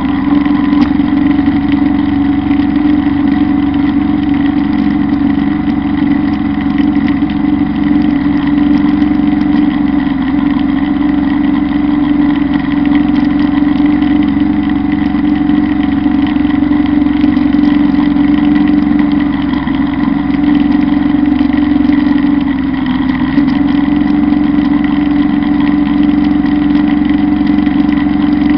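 Kubota Bulltra B1-17 compact tractor's diesel engine running steadily under load while powering a drum mower cutting tall grass, with a thin steady high whine above the engine note.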